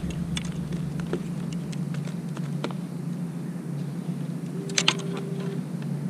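Light scattered clicks and taps from handling a freshly landed Pacific mackerel and the fishing gear, with a quick cluster of sharper clicks about five seconds in.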